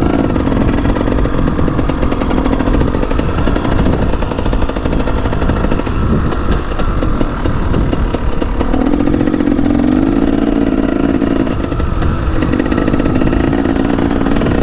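KTM 300 EXC two-stroke dirt bike engine being ridden hard, revving up and down, its note held steadier from about nine seconds in.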